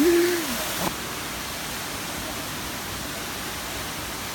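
Steady rushing of a waterfall pouring into its pool, heard up close. A short vocal exclamation right at the start.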